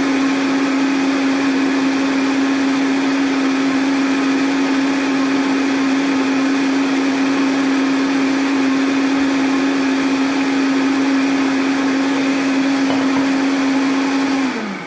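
Vitamix blender motor running at a steady high speed, blending a thick ice-cream shake, with a strong steady hum. Near the end it is switched off and the motor winds down with a falling pitch.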